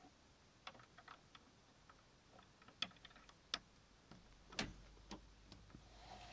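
Faint, scattered clicks and light taps, about a dozen at irregular intervals, the loudest about four and a half seconds in. These are plastic Lego pieces being handled and knocked as the camera moves through a brick-built model base.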